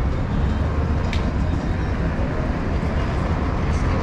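Busy city street ambience: a steady low rumble of road traffic with general street noise, and a brief click about a second in.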